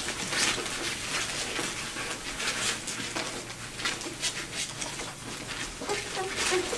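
Irregular rustling and scratching on a bedsheet as two-day-old vizsla puppies crawl and jostle against their nursing mother, with faint thin puppy squeaks near the end.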